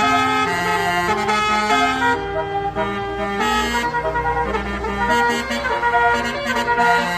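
A bus's 'telolet basuri' multi-tone musical horn playing a melody of held notes that step up and down in pitch. A low rumble runs underneath through the middle.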